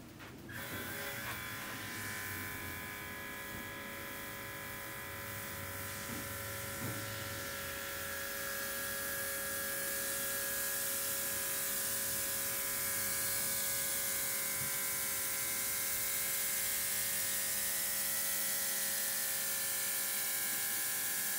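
Cordless USB-C airbrush's built-in mini compressor running steadily while it sprays paint. A buzzing motor whine with a hiss of air over it starts just after the beginning and runs on without a break.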